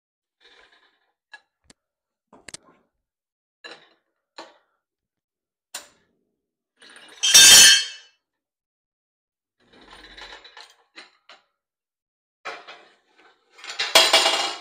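Scattered light metallic clicks and clinks as the raised riding mower is lowered, with two louder ringing metal clanks, one about halfway through and one near the end.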